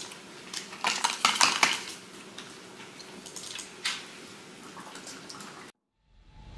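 A large plastic drink bottle being handled and drunk from: a quick cluster of hard knocks and clicks about a second in, and another knock near four seconds. The sound cuts off suddenly near the end.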